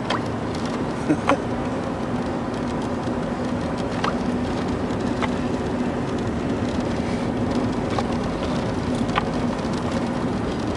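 Steady in-cabin driving noise from a Jeep on a snow-covered road: engine and tyre hum with a steady low drone. Faint clicks recur in pairs about every four seconds.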